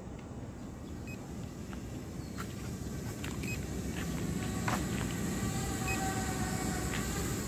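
Steady low outdoor background rumble, growing slightly louder, with scattered short high chirps and clicks. From about five seconds in, a faint hum made of several steady tones joins it.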